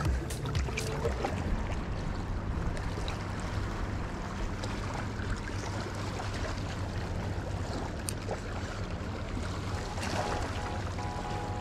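Waterside ambience: small waves lapping and washing over the rocks of the shoreline over a steady low rumble.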